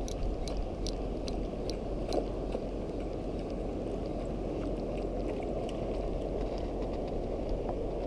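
A steady low rush of flowing water and wind on the microphone, with faint irregular ticks and scraping from a spinning reel being cranked to retrieve a lure.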